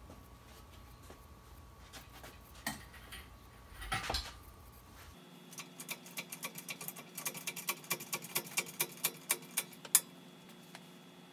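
Metal knocks, then a fast run of sharp clicks, about five a second, growing louder for several seconds, from work at an engine hoist lifting a Subaru EJ25 boxer engine out of the car.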